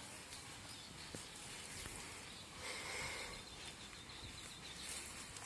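Faint rural outdoor ambience: a steady low hiss, with a fast, faint high-pitched trill of an insect or bird in the second half.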